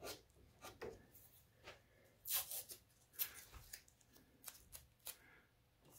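Faint handling sounds of blue masking tape being pressed and rubbed down over the edge of a thin aluminium litho-plate panel: a few short, scattered rustles and scrapes, the loudest about two and a half seconds in.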